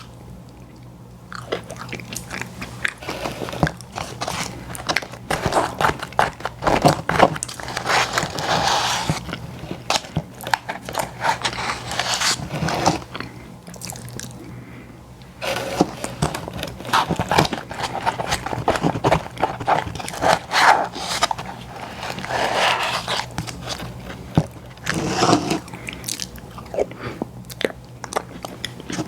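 Close-miked ASMR eating: a person biting and chewing, with dense crackling mouth clicks in bursts and a short lull about halfway through.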